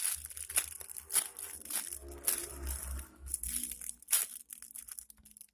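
Close, irregular crinkling and rustling of plastic as a foam squishy toy is handled and squeezed, with scattered sharp crackles and knocks and a low rumble of hands close to the microphone.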